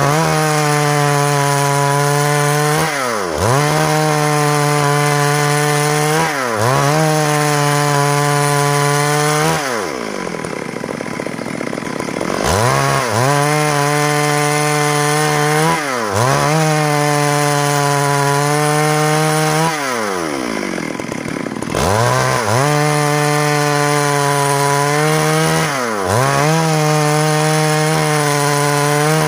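Stihl MS382 two-stroke chainsaw ripping lengthwise through a log under load, the engine pitch dipping and recovering every three seconds or so. Twice, about ten and twenty seconds in, it runs a little quieter for a couple of seconds with its pitch climbing.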